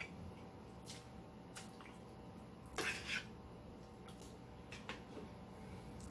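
Quiet eating and handling sounds: scattered faint clicks, with a short louder crackle about three seconds in.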